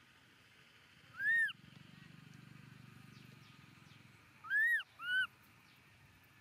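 Baby macaque crying: three high squealing calls that rise and fall in pitch, one about a second in and two close together near the end.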